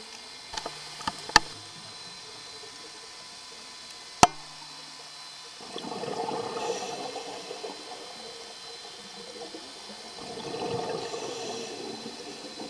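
Scuba diver exhaling through a regulator underwater: two long bubbling rushes of air, about four seconds apart, in the second half. A few sharp clicks come in the first few seconds.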